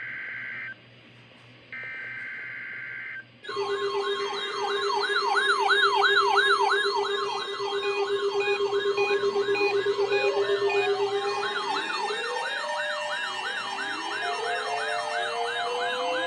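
Two bursts of NOAA Weather Radio SAME digital data tones, a steady two-tone screech, followed about three seconds in by several weather radio receivers sounding their alarms at once: a clash of fast warbles, slower wails and a steady low tone that keeps going.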